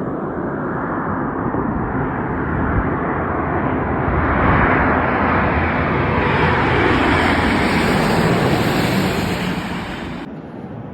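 Airbus A350-900 airliner landing, its Rolls-Royce Trent XWB jet engines a rising roar as it passes close by, with a high fan whine at its loudest, then dying down near the end.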